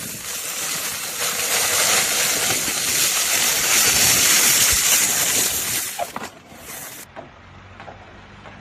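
A loud, steady hiss of rushing noise that cuts off about six seconds in.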